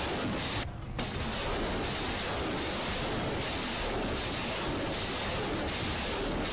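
Truck-mounted multiple rocket launchers firing a salvo: a continuous rushing roar of rocket motors, briefly dulled a little under a second in.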